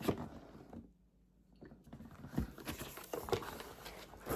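Faint rustling and light taps of a cardboard package being handled and opened, with a brief near-silent pause about a second in.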